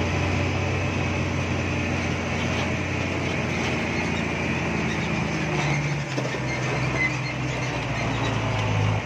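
Heavy diesel engine running steadily at raised revs while a Fuso truck pulls a rice combine harvester on a taut tow cable. Its low note drops briefly about six seconds in, then picks up again.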